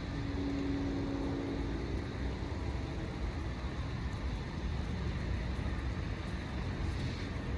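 Steady low vehicle rumble, with a faint steady hum during the first couple of seconds.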